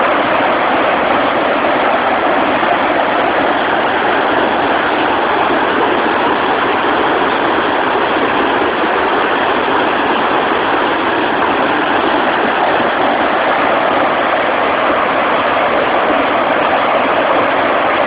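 Loud, steady rush of a large volume of water pouring over a concrete drop into an irrigation canal and churning into whitewater below.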